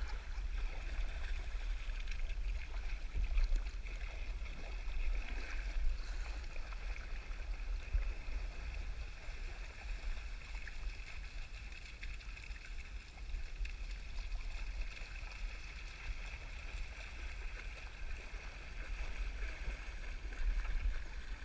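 Shallow river water running and gurgling over riffles around a kayak, with dogs splashing as they swim and wade alongside. A steady low rumble sits underneath.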